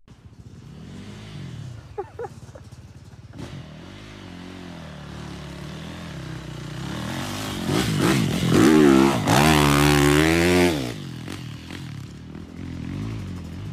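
Dirt bike engine revving up and falling back again and again as it is ridden round a dirt track. It grows louder to its loudest close pass between about eight and eleven seconds in, then fades off.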